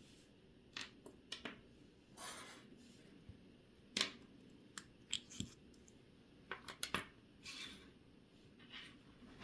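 Small metal tools and parts clicking and scraping on a vintage Omega 30T2 watch movement being dismantled at the bench: a string of irregular sharp ticks mixed with a few brief scrapes.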